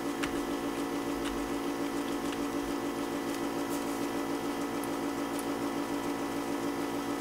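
A steady low background hum runs throughout, with a few faint scattered clicks from keyboard keys.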